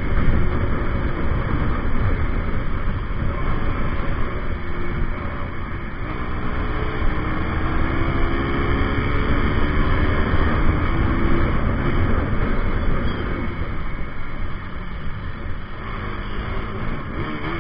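Wind rushing over a bike-mounted microphone at road speed, with the KTM RC200's single-cylinder engine running underneath. Its note climbs as it accelerates around the middle and again near the end.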